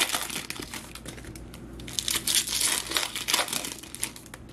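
Foil wrapper of a Topps Chrome baseball card pack being torn open and crinkled by hand, a dense crackling that gets busier past the middle.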